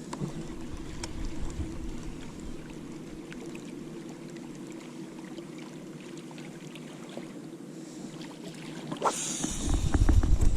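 Boat engine running steadily with a low even hum. Near the end wind starts buffeting the microphone with a loud rumble.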